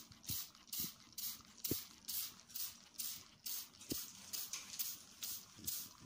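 Hand-held trigger spray bottle pumped over and over, a short hiss of water mist about twice a second.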